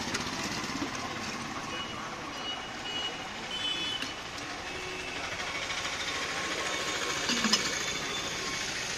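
Street traffic noise from passing vehicles, with a few short high beeps about two to four seconds in, and one sharp knock near the end.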